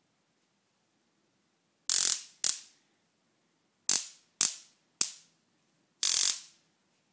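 Handheld JSJ stun gun firing its electric arc in six loud crackling zaps. The first, about two seconds in, and the last, near the end, each last about half a second; the four between are short.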